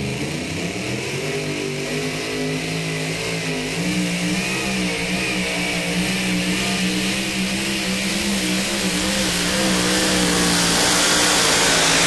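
Super Mod 2WD pulling truck's engine at full throttle as it drags a weight-transfer sled: the note climbs in the first second off the line, then holds steady with a slight waver. It grows louder toward the end.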